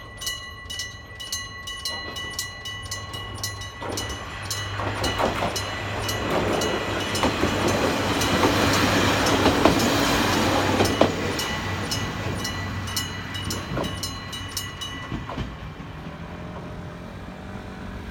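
Electric-bell level-crossing signal ringing with evenly repeated metallic strikes while a train passes over the crossing. The train's rumble swells to its loudest around the middle and fades, and the bell stops near the end.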